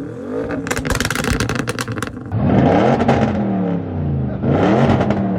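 Sports car engine revving hard through a loud exhaust, its pitch rising and falling in repeated blips. There is sharp crackling about a second in, and the revving gets louder a little after two seconds.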